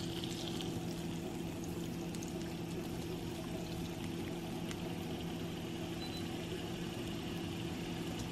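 Seasoned chicken breasts sizzling steadily in hot oil in a nonstick skillet, over a steady low hum.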